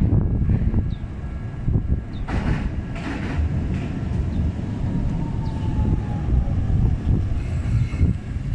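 A Sakura Tram (Toden Arakawa Line) streetcar running on its rails: a steady low rumble with louder rail noise a couple of seconds in, and a faint falling squeal in the middle.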